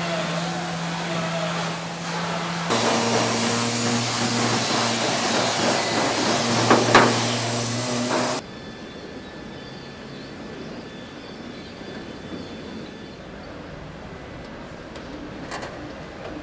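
Car-factory machinery noise: a steady hum and hiss that changes abruptly twice. It is louder in the middle, with a brief swell about seven seconds in, then drops to a quieter hum with a few light clicks.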